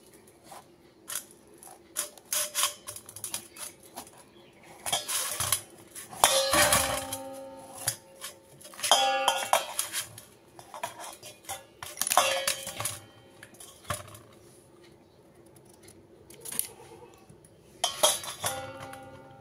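Kitchen knife cutting a green pumpkin inside a stainless steel bowl, with the pumpkin and blade knocking against the bowl: irregular clanks and clinks, several leaving the bowl ringing briefly.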